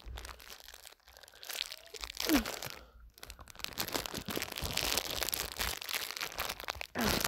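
Plastic candy wrapper crinkling and crackling as it is handled, scattered at first, then continuous and louder in the second half.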